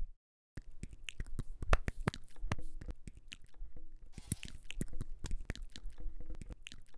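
Chewing-like sound effects: quick, irregular clicks and wet smacks in dense runs, dropping out to silence for a moment just at the start.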